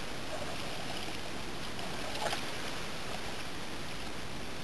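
Steady rushing noise of open water and air around a small fishing boat, with one faint short knock about two seconds in.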